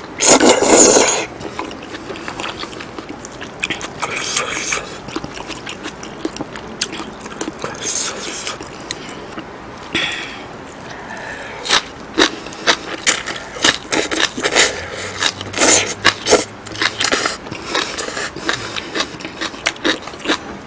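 Close-miked eating: a loud slurp of curry-coated noodles in the first second, then wet chewing and lip-smacking with many short clicks, busiest in the second half.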